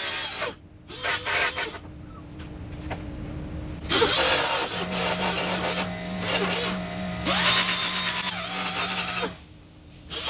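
Power grinder running in bursts, grinding back the high spots where the aftermarket bonnet touches. Its longest run has a steady motor hum, which rises in pitch and then winds down near the end.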